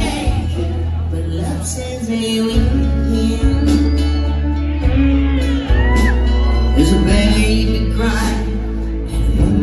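Live country band playing an instrumental passage of a ballad in a concert hall, with a steady bass line under the other instruments.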